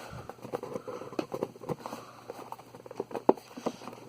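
Hands pulling the wrapping off a speedcube box: irregular crinkles, rustles and small clicks of plastic and cardboard being handled.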